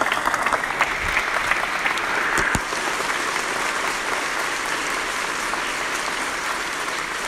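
A large audience applauding in a standing ovation, the dense clapping holding steady and easing a little after the first few seconds.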